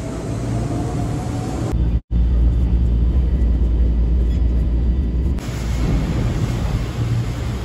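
Chiba Urban Monorail, a suspended train, running. First a rising whine as a car passes overhead. After an abrupt break comes a deep, steady rumble heard from inside the cab, and then steady running noise from below the track again.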